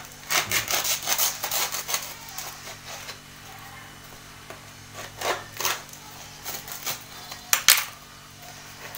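Knife sawing through the crisp crust of a petit pain bread roll to split it open: a quick run of scraping strokes in the first two seconds, then a few separate cuts, the loudest near the end.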